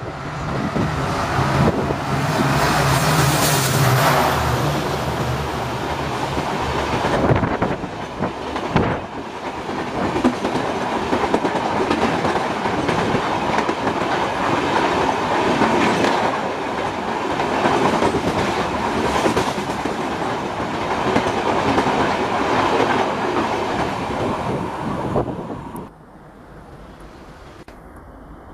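Express passenger train passing close by at speed. The locomotive goes by in the first few seconds with a low engine drone, then a long string of coaches follows with wheels clattering over the rail joints. Near the end the sound drops off sharply to a faint, steady distant rumble.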